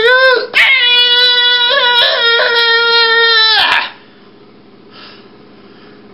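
A high-pitched, childlike puppet voice wailing and crying for about three and a half seconds, then breaking off; faint room tone follows.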